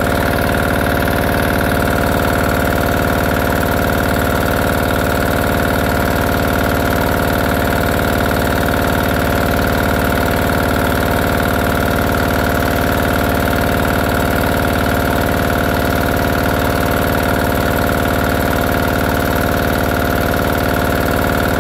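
Kerrick pressure washer's single-cylinder diesel engine running steadily at an even speed, no longer stalling now that it has been repaired.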